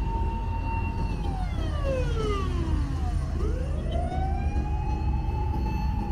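Emergency-vehicle siren wailing: a steady high tone that slides down over about two seconds, then climbs back up and holds, over a low rumble of street noise.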